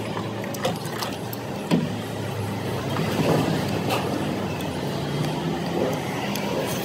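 Street traffic with a vehicle engine running steadily, and a few sharp clicks.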